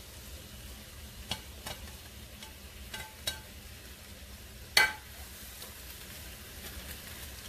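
Cubed cooked chicken pushed off a ceramic plate into a frying pan of simmering milk sauce with a plastic spoon, with a few light clicks of the spoon against plate and pan over a faint sizzle. About five seconds in, a sharp clack as the plate is set down on the counter.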